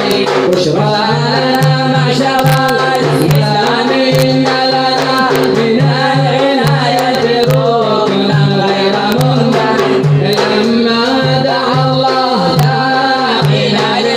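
A man singing an Arabic devotional nasheed in long, bending melodic lines over a low backing and a regular percussion beat.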